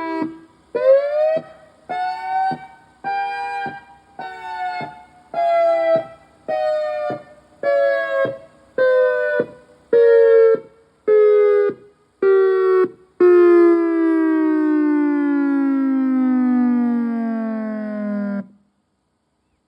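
EOWS 612 siren sounding in short pulses, roughly one a second. The pitch climbs over the first pulses and then slowly sags. It ends in one long, loud tone that falls steadily in pitch as the rotor winds down, then cuts off near the end.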